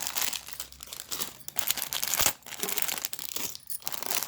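Plastic packaging crinkling and rustling as it is handled, with one sharp knock a little over two seconds in.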